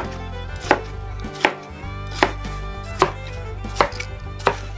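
Kitchen knife chopping smashed cucumber into chunks on a bamboo cutting board: about seven even chops, one every three quarters of a second, each a sharp knock of the blade through the cucumber onto the board.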